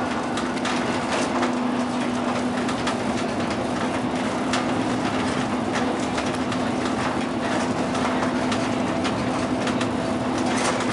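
Inside the cab of a bus driving along a road: a steady low hum of the running vehicle, with frequent short clicks and rattles over the road noise.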